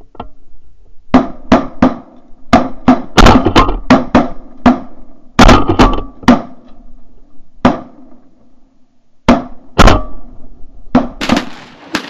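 Several shotguns firing a ragged volley at a flock of Canada geese, some twenty shots. They come thick and fast for the first several seconds, then a few scattered shots follow.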